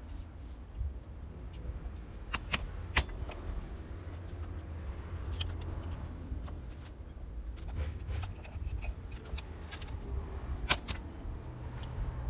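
Scattered sharp metallic clinks and taps of metal parts or tools being handled, loudest a little before the end, over a low steady rumble.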